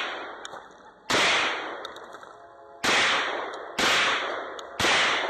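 Gunshots from a shooter on a 2-gun course: four sharp shots, roughly one to two seconds apart, each ringing out for about a second, with the echo of a shot fired just before also fading at the start.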